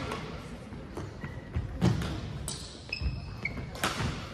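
Badminton rally in a gym hall: sharp racket strikes on the shuttlecock about two seconds apart, ringing in the hall, with short squeaks of shoes on the hardwood court between them.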